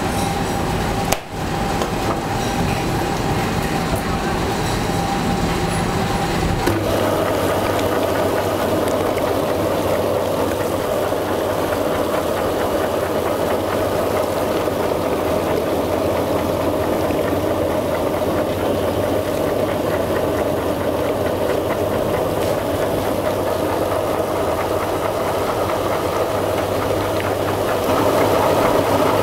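Electric meat mincer set up as a sausage stuffer, its motor running with a steady hum as minced pork is fed through into the casing.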